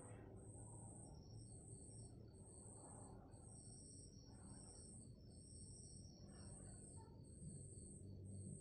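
Near silence, with faint high-pitched chirps repeating evenly about once a second over a low hum.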